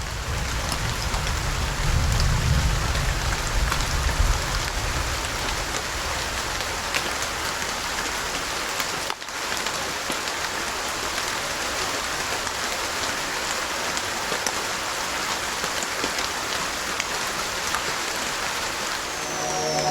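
Steady rain falling, with scattered drop ticks over an even hiss and a low rumble in the first few seconds. The sound briefly cuts out about halfway through.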